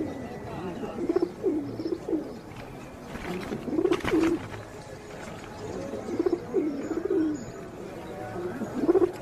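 Pigeons cooing in a flock: repeated low, rolling coos every second or so, with a few short sharp sounds among them.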